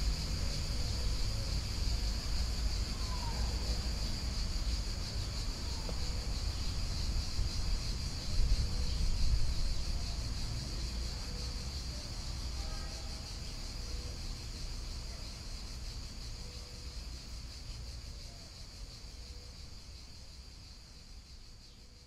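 Outdoor ambience at a shallow stream: a steady high-pitched insect drone over a low rumble and soft water flow, with a couple of faint bird chirps. It all fades out gradually over the second half.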